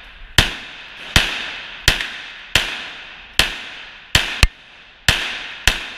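A semi-automatic pistol firing a steady string of about nine shots, a little over one a second, with two fired in quick succession about four seconds in; each shot echoes off the walls of an indoor range.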